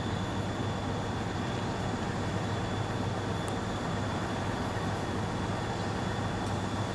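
A steady low engine-like rumble that does not change, with a faint steady high whine above it.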